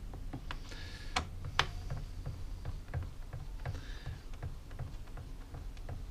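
Screwdriver turning a small bolt in the chainsaw's plastic brake cover: a run of small irregular clicks and light knocks, with two sharper clicks a little over a second in and brief scraping now and then. The bolt's captive nut has come loose, so it is being backed out to let the nut drop free.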